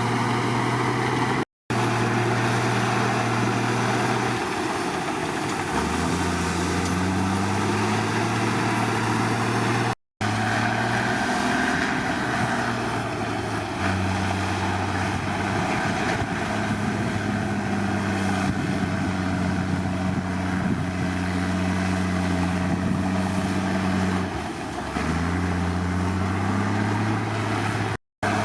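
Bulldozer diesel engine running under working load, its speed dropping and picking up again several times. The sound cuts out briefly three times.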